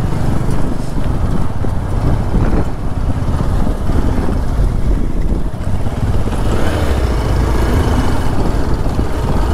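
Motorcycle being ridden, its engine running under loud, steady wind and road noise on the microphone.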